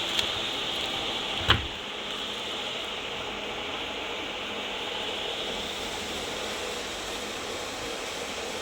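Front-load washing machine running with a steady hiss, a small click right at the start and one sharp knock about a second and a half in.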